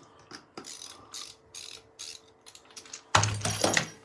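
Ratcheting screwdriver clicking in short strokes, about twice a second, as the door lockset's mounting screws are driven back in. A louder clatter of the lock hardware comes about three seconds in.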